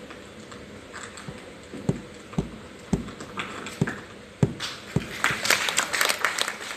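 Waste plastic bottle crumpled and twisted by hands as a Foley imitation of fire crackling. A few soft thuds, then dense irregular crackling from about halfway in.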